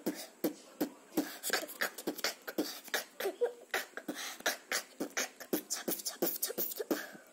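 A boy beatboxing: a steady rhythm of mouth-made kick and snare sounds, about three hits a second, with short vocal bits in between, stopping near the end.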